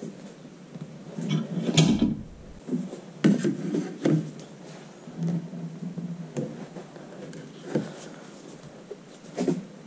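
Hands twisting and working a Duramax diesel's spin-on fuel filter canister off its filter head: irregular knocks, clunks and rubbing, with the loudest knock about two seconds in.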